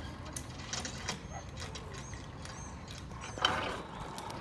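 Light metal clicks and clinks of climbing safety gear (carabiners and lanyards on steel cables), with one sharp clank about three and a half seconds in.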